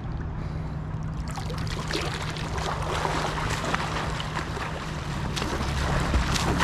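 Pool water splashing and lapping as a swimmer pushes off and swims freestyle, his arm strokes and kicks churning the surface. The splashing starts about a second in and goes on unevenly, over a steady low hum.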